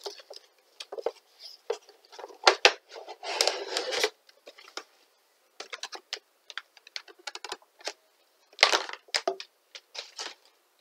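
Cardboard Funko Pop box and the clear plastic bag around the vinyl figure being opened and handled: a run of sharp clicks, scratches and plastic crinkling, with longer stretches of rustling about three and a half seconds in and near nine seconds.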